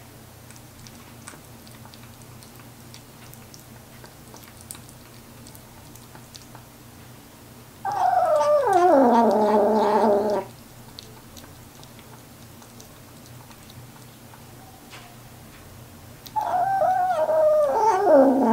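Young kitten giving a long, low warning yowl while eating from a bowl, twice: once about eight seconds in and again near the end, each call a couple of seconds long and sliding down in pitch. It is a frightened kitten's threat sound at a person near its food, with faint eating clicks in between.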